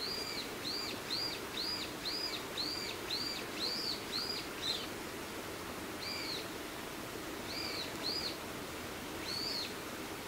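A songbird calling: a quick series of about ten arched, whistled notes, about two a second, then only a few single notes after a pause, over a steady low background hum.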